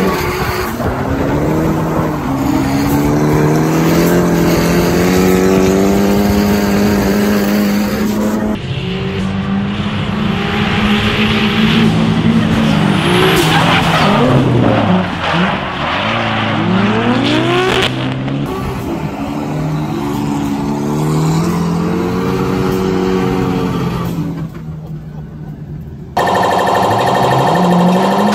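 Drift cars sliding in tandem: the engines run at high revs, their pitch climbing and falling as they rev, with tyre squeal and skidding. Near the end the sound cuts to a steady pneumatic rattle from a tyre-changing machine.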